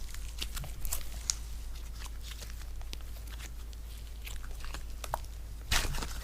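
Slime being squished and pressed by hand, giving irregular crackling clicks and pops, with a louder burst of crackles near the end.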